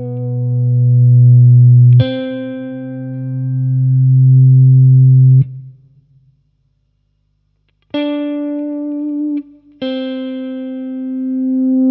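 Electric guitar played through a DigiTech FreqOut feedback-generator pedal: held notes swell in level after each pick as synthetic feedback builds and sustains. The sound cuts off about five seconds in, then after a short silence new notes are picked about eight and ten seconds in and swell again.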